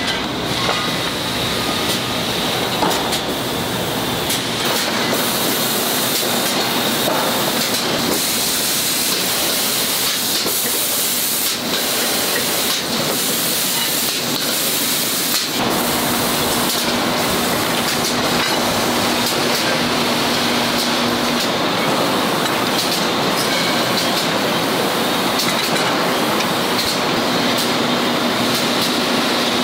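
Steady machinery din on a non-stick frying-pan production line: a continuous hiss, with a low steady hum that comes in about halfway through.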